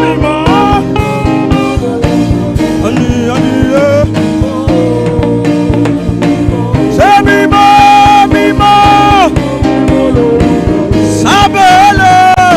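Live worship music: a voice singing long held notes, with slides between them, over guitar and band accompaniment with a steady beat.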